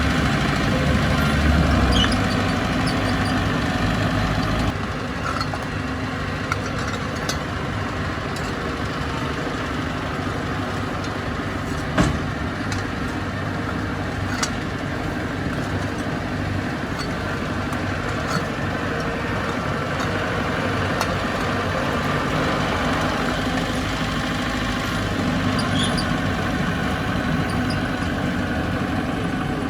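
Bulldozer's diesel engine running steadily, dropping a little in level about five seconds in. A few sharp clanks break through, the loudest about twelve seconds in.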